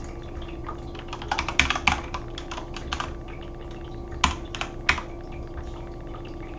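Typing on a computer keyboard: a quick run of keystrokes a little over a second in, then scattered single key presses, the sharpest two around four and five seconds in, over a steady low hum.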